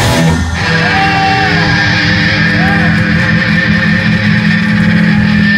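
Live metal band with distorted electric guitars: the full-band playing stops about half a second in and the guitars ring out a held chord, with a steady high feedback tone that grows louder near the end.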